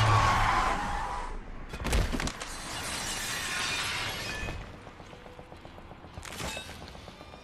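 Film action sound effects: a car's tyres screeching under hard braking, then a sharp crash about two seconds in followed by breaking glass and a metal hand scraping along asphalt. Quieter near the end, with one more hit and faint music.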